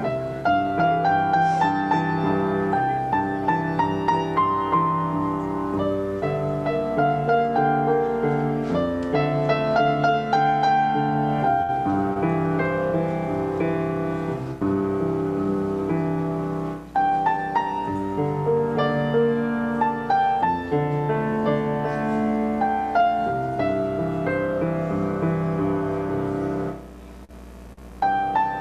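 Piano playing a continuous flow of notes, pausing for about a second near the end before going on.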